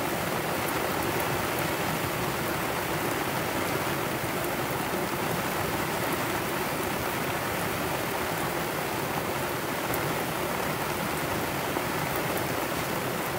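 Heavy tropical-storm rain pouring down steadily on the anchored sailboat and the sea around it, a constant even hiss with faint drop ticks.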